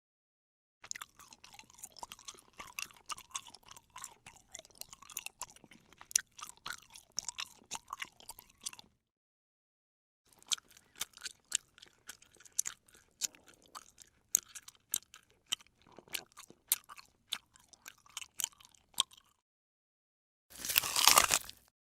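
A person chewing crunchy food close up: two long runs of crisp, irregular crunches with a short pause between them, then a louder, denser burst of crunching about a second long near the end.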